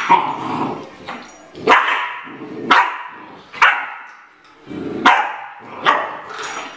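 Siberian husky puppy barking: six short, sharp barks about a second apart.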